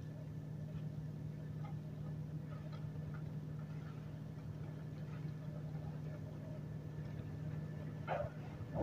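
Steady low hum of an engine running, with faint scattered ticks and a short, louder higher-pitched sound near the end.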